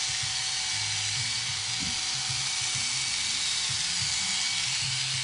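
Corded electric hair clippers running steadily as they cut hair close to the scalp during a headshave.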